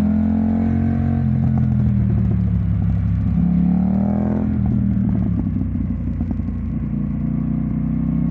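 KTM 990 Duke's V-twin engine through a Remus aftermarket exhaust, revving under way: the note eases off about a second in, climbs again and drops off sharply about four and a half seconds in, then runs lower and a little quieter before building again near the end.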